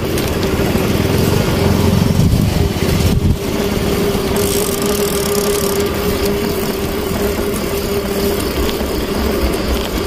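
Motorcycle engine running steadily on the move, with a constant humming tone over the noise; the low rumble is heavier for the first three seconds or so, then eases a little.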